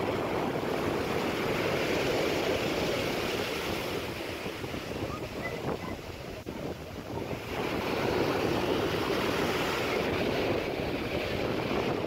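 Rough sea surf: waves breaking and churning into foam. The rush eases a little about halfway through and builds again a couple of seconds later.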